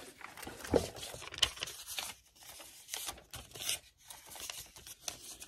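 Small clicks, taps and paper rustles of craft supplies being handled on a desk while a pot of white paint is got out.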